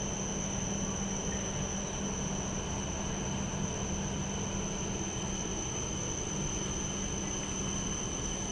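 Steady background roar of city ambience with a constant high-pitched whine and a low hum.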